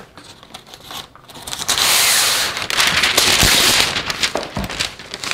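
Parchment paper pulled off its roll in the box and torn off: a loud crackling rustle of stiff paper lasting about two seconds, starting a little under two seconds in, with lighter crinkles as the sheet is handled.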